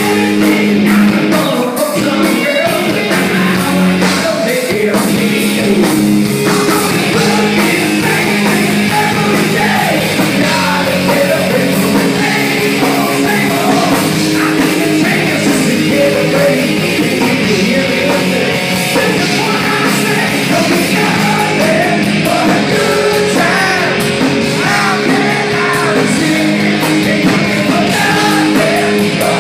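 Live rock band playing loud and without a break, a singer over electric guitars and drums.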